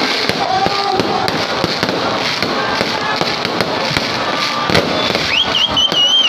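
Many fireworks and firecrackers going off at once in a dense, continuous crackle of pops and bangs. About five seconds in, a whistle rises and then holds, wavering, for about a second.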